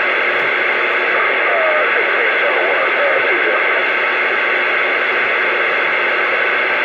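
CB radio receiver hiss between transmissions: steady static through the radio's speaker, with faint warbling, garbled voice fragments from distant stations about two seconds in.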